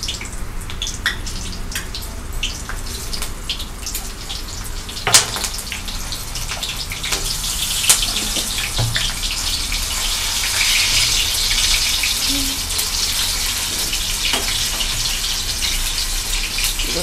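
Green chillies sizzling and crackling in hot oil in a steel kadai, the sizzle growing louder from about halfway through, with a few sharp clinks of a steel spoon against the pan.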